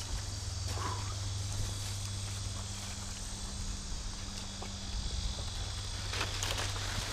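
Steady chorus of insects buzzing and trilling, with a few short crunching steps about six seconds in.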